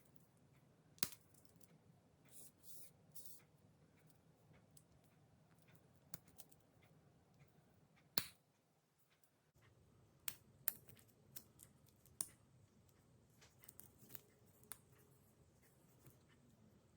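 Scattered sharp clicks and taps, the loudest about eight seconds in and a quicker run of them a couple of seconds later, with short rustles near the start: a watch and its packaging being handled.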